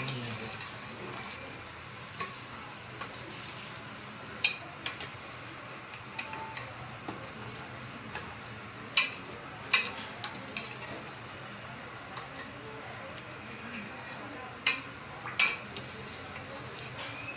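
A long metal ladle stirring chicken pieces and ginger-garlic paste in hot oil in an aluminium pot, knocking against the pot in a few sharp clanks, the loudest about halfway through and twice near the end, over a steady sizzle of frying.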